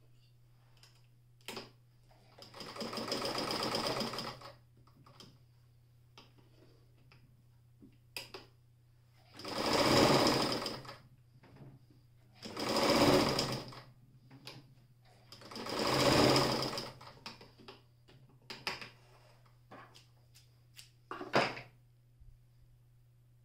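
Alfa 50 heavy-duty electric sewing machine stitching a scrap of fabric in four short runs of a second or two each, the first quieter than the rest. Short clicks from handling the machine and cloth come between the runs.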